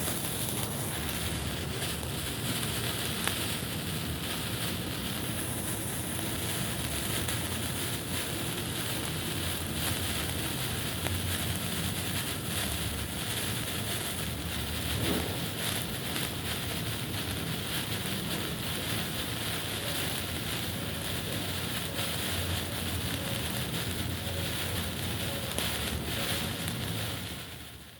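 A burning signal flare hissing and fizzing steadily, with a faint crackle. The sound fades out near the end.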